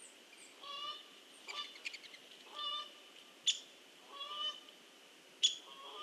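Geese honking, about five separate calls. Two sharp clicks, about three and a half and five and a half seconds in, are the loudest sounds, over a faint steady high tone.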